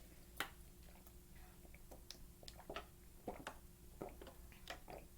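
Faint, scattered clicks and smacks of a person chewing food, over a low steady hum.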